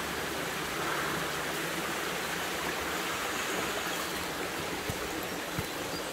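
Steady rushing of running water from the Pulsbach, a small brook flowing through a narrow gorge.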